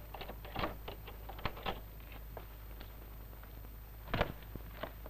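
Irregular light clicks and knocks of a door's lock and handle being worked as the door is opened. More knocks follow about four seconds in.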